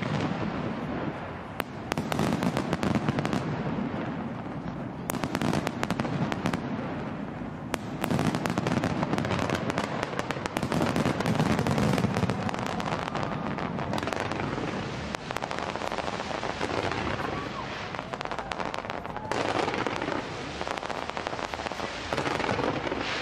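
Fireworks display: a dense, continuous barrage of shells bursting and crackling, with low booms underneath and several sharp bangs standing out.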